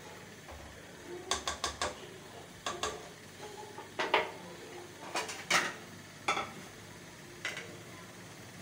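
A spoon stirring minced meat in a pot, clinking and scraping against the pot in scattered strokes. A sharper knock comes about four seconds in, and a few more clinks follow.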